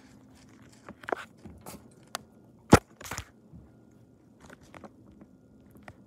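Scattered knocks and clicks, the loudest a single sharp knock a little before the middle, over a faint steady low hum.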